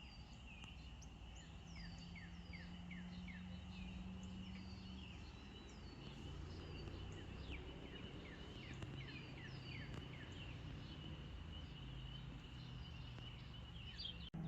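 Faint outdoor birdsong: many small birds giving short, quick falling chirps over a steady high-pitched chorus, with a low hum underneath.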